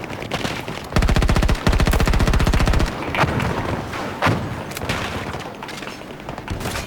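Automatic gunfire from a video game: two long bursts of rapid fire starting about a second in, followed by a few single shots.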